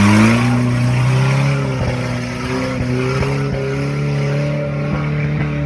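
Off-road vehicle's engine revving up and then held at high revs, its pitch wavering slightly as it pushes through mud, slowly growing fainter.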